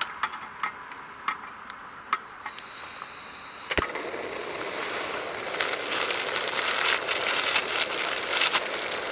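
Wood campfire crackling: scattered pops, a sharp snap about four seconds in, then denser, louder crackling.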